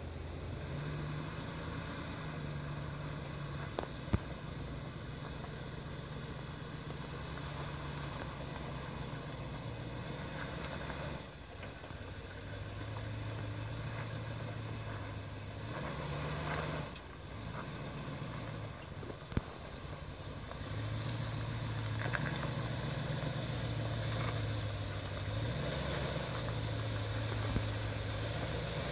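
Lifted GMC full-size SUV's engine running at low revs while crawling over rocks, its pitch stepping up and easing back down several times as the throttle is worked. A few sharp clicks sound now and then.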